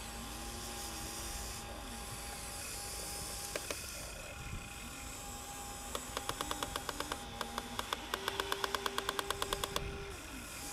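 Small electric motors and gearing of a radio-controlled Huina excavator whirring as it swings its arm and turns. In the second half there are two stretches of rapid, even clicking, several clicks a second.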